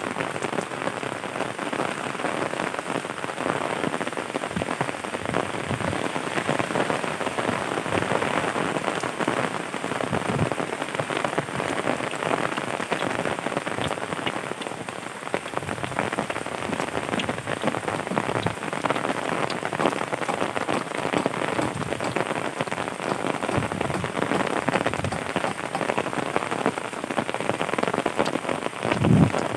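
Steady rain falling on surfaces, a dense patter of drops that holds even throughout. A single dull low thump sounds near the end.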